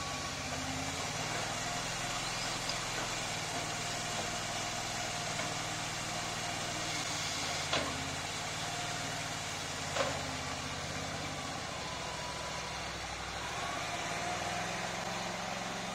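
Mini loader's small engine running steadily under load, with a faint wavering whine above it. Two sharp knocks come about two seconds apart near the middle as the bucket is raised and tipped over the truck bed.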